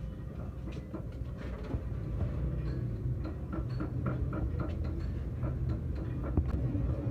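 Light clicks and knocks of metal parts and tools being handled, over a steady low rumble.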